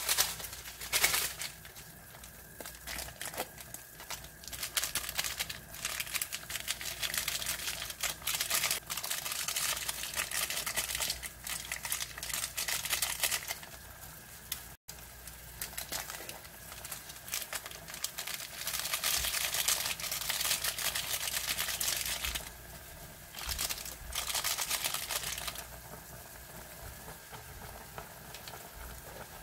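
Water boiling in a pot around a block of instant ramen noodles, with stretches of crinkling and rustling from the soup-powder sachet as it is emptied over the noodles.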